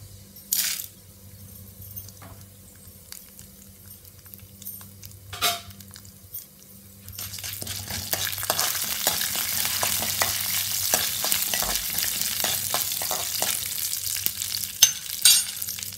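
Peppercorns, urad dal and chana dal frying in oil in a metal kadai. It is quiet at first with a couple of sharp clicks, then from about seven seconds in there is a steady crackling sizzle while a spoon stirs the grains. There are two sharp knocks near the end.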